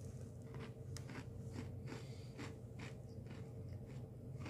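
A person biting into and chewing a crisp Oreo sandwich cookie: irregular faint crunches, a few a second, over a steady low hum.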